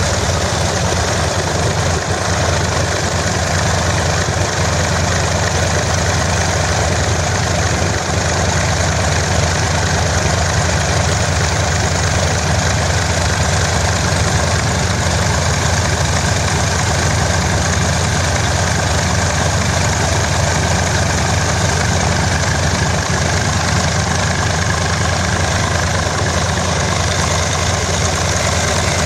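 Small radial engine of a Flitzer biplane running steadily at low power, propeller turning.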